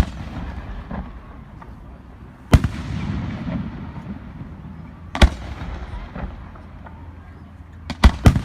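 Fireworks bursting: sharp loud bangs about every two and a half seconds, each trailed by a low rolling rumble of echo, with two bangs in quick succession near the end.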